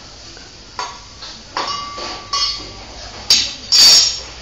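Small stainless-steel pots, cups and utensils clinking and clattering together as a toddler handles them. There are about five knocks, one leaving a short metallic ring.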